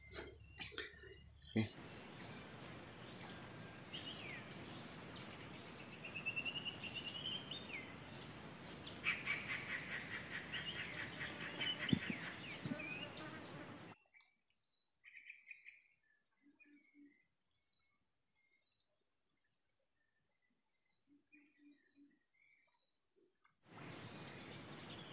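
Steady high shrilling of insects with scattered bird chirps over it, including a quick run of chirps about ten seconds in. The background hiss drops away abruptly for about ten seconds in the middle, leaving the insects and a few chirps.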